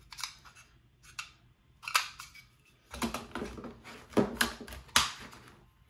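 Pistol magazines and small accessories being handled: metal and plastic clicks and clacks. There are a few separate clicks in the first half, then a busier run of knocks, with the two loudest near the end.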